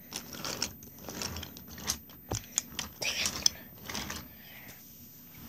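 Wooden toy train cars pushed by hand along wooden track, giving irregular clicks, knocks and light rattling, with a dull thump about two seconds in.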